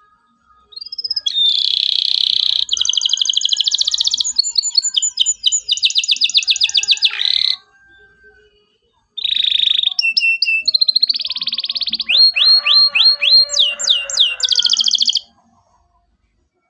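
Canary singing: two long song phrases of fast trills and rapid repeated chirps, each about six seconds long, with a pause of under two seconds between them.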